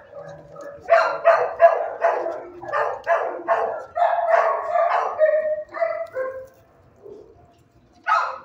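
A shelter dog barking in its kennel: a fast run of loud barks, about three a second, that lasts roughly five seconds and then stops, with one more bark near the end.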